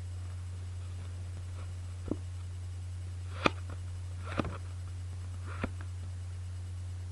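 Four short clicks of playing cards being handled, the loudest about halfway through, over a steady low hum.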